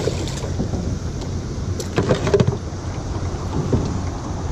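A fish splashing as it is dropped back into the river beside a small aluminium jon boat, then a steady low rumble of moving water and wind, with a few sharp knocks about two seconds in.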